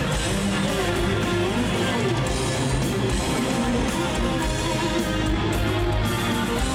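Rock band playing live, with guitar to the fore in an instrumental passage and no singing.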